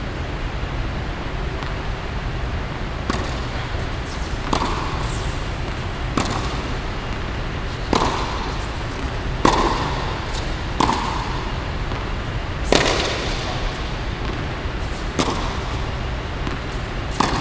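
Tennis ball being struck by rackets and bouncing on a hard court during a rally: sharp pops about every second and a half, each with a short echo off the hall.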